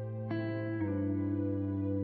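Background music: a slow, calm instrumental of sustained notes, with a new note struck about a third of a second in and the chord changing just under a second in.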